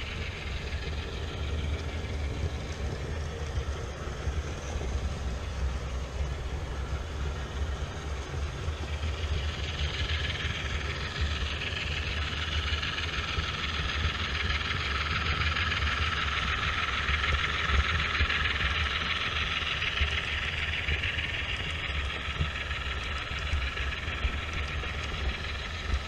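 HO scale model trains running on track: a steady low motor hum with the rolling rumble of wheels on rail, swelling louder from about ten seconds in to about twenty-two seconds in as the locomotives run alongside on the adjacent track.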